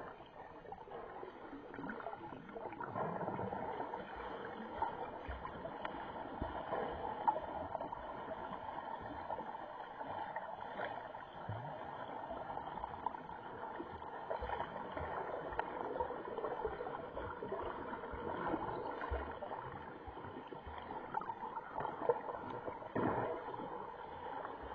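Muffled underwater water noise from a camera held under the surface while snorkelling: a steady swishing hiss with faint gurgles, scattered small clicks and soft low knocks.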